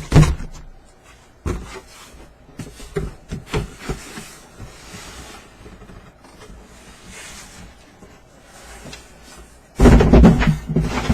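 Boxes and packaging being handled and moved: scattered knocks and rustles, with a loud cluster of knocking and rustling near the end.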